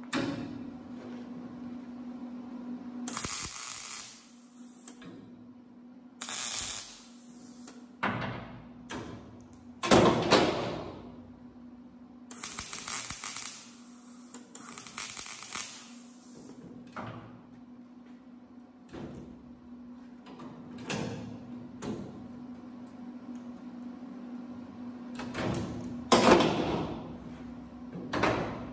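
Wire-feed (MIG) welder laying spaced spot welds on truck-bed sheet steel: about eight brief crackling bursts, each about a second long, with pauses between, over a steady hum. The welds are kept short and spread apart so the thin sheet metal doesn't warp.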